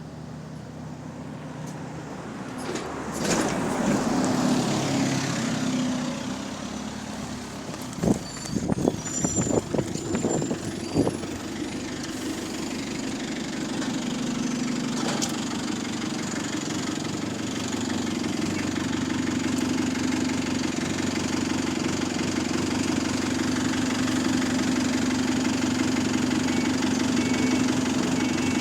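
Bus diesel engine pulling up and then idling steadily, with a small exhaust leak. A cluster of sharp knocks and hisses comes about 8 to 11 seconds in, typical of a bus's air brakes.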